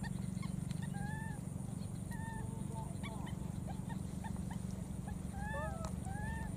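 Baby macaque giving short, arched squeaking calls: one about a second in, another a second later, then a quick cluster near the end. A steady low hum runs underneath.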